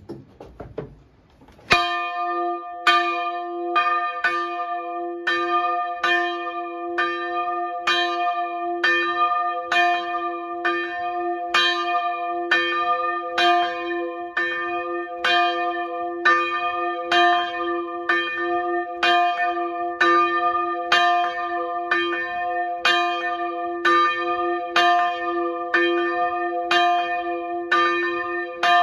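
Swinging church bell tuned to d2 (130 kg, cast in 1772 by Carl Jacob Linderberg) ringing to call the congregation to service. A short low rumble comes as it begins to swing, then the clapper starts striking about two seconds in and keeps striking steadily, more than once a second, each stroke ringing on into the next.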